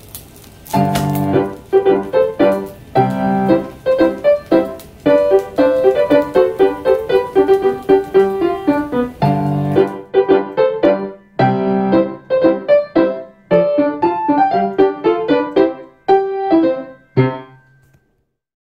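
Background piano music: a light melody of separate notes that stops shortly before the end.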